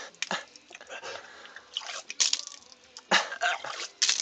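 A man retching and spitting in several short, harsh bursts while vomiting, with saliva and vomit dripping from his mouth.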